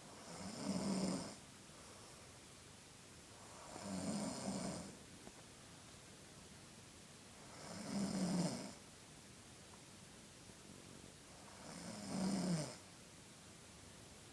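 A sixteen-year-old boy snoring in his sleep: four snores, each about a second long, coming about every four seconds with quiet breathing between.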